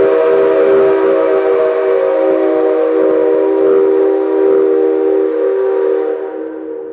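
Steam-locomotive whistle of the C57 135 blowing one long, steady blast of several tones together. It cuts off about six seconds in and echoes away through the hall.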